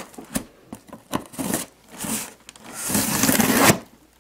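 A dull knife scraping and cutting through packing tape along the seam of a cardboard shipping box in short strokes, then one longer, louder scrape of about a second near three seconds in.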